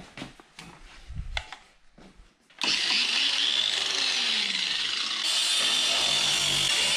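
Handling knocks and clicks, then about two and a half seconds in an angle grinder starts and cuts into the sheet steel of a car's rear wheel arch. It is a loud, steady, high-pitched grinding that grows brighter and harsher about five seconds in.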